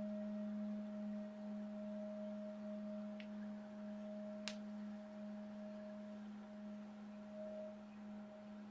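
Singing bowl ringing out in a long, steady, wobbling tone that slowly fades, with two faint clicks in the middle.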